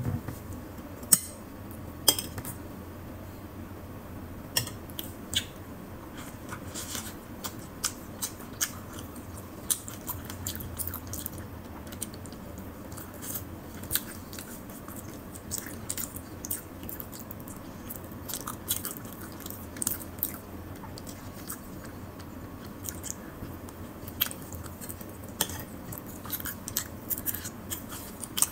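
Close-up chewing and mouth sounds of a person eating soft white bread, with many small wet clicks and smacks and a few sharper ones.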